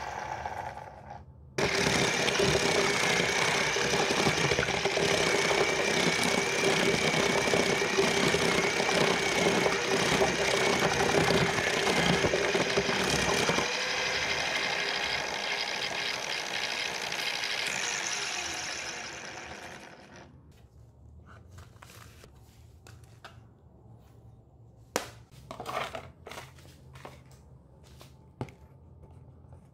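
Small motor of a homemade onion slicer running its spinning blade disc as onions are sliced, a steady whine over a chattering hiss. It winds down about twenty seconds in, followed by a few scattered clicks and knocks.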